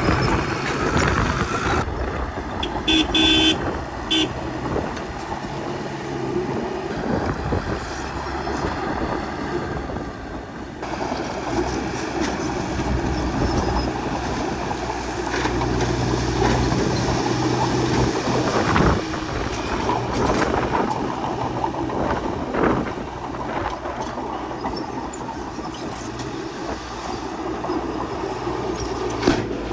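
Bulldozer's diesel engine running steadily as it works, with a brief high-pitched tone about three seconds in and occasional knocks.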